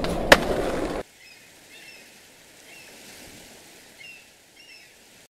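Skateboard rolling, with a sharp clack about a third of a second in, cutting off suddenly after about a second. Then faint ambience with a few short high chirps.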